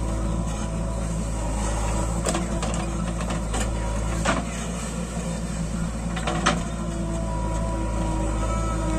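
Diesel engine of a JCB backhoe loader running steadily under load as it digs and swings its bucket of soil, with a few sharp knocks spread through.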